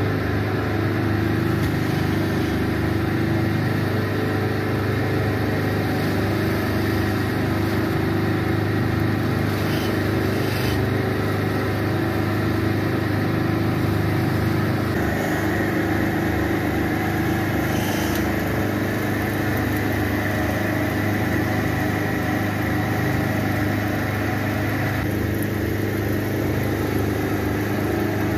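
Wool-carding machine running with a steady mechanical hum while wool is fed by hand into its rollers.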